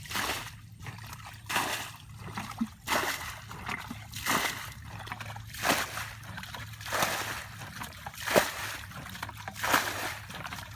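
Water splashing and sloshing in a steady rhythm, about one splash every second and a half.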